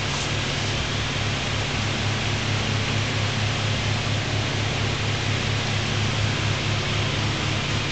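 Plum wine in a glass carboy fermenting actively in secondary, fizzing and bubbling steadily like a coffee maker as carbon dioxide escapes. The sound is an even, rain-like hiss with a low, rapid throb underneath.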